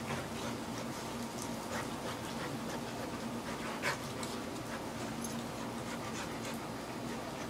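Two dogs, an Old English Sheepdog and a chocolate Labrador Retriever, play-wrestling: panting and scuffling, with scattered short clicks and a sharper one about four seconds in.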